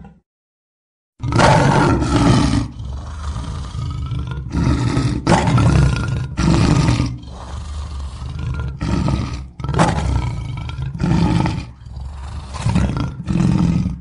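Lion roaring: a string of about a dozen loud, deep roars with short breaks between them, starting about a second in after a brief silence.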